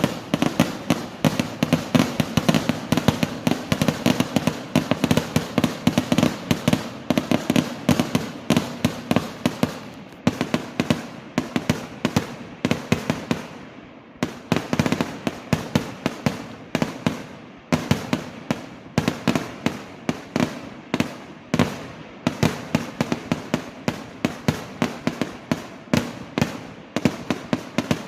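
Fireworks exploding in a dense barrage: a steady run of sharp bangs and crackles, several a second, easing off briefly about halfway through before picking up again.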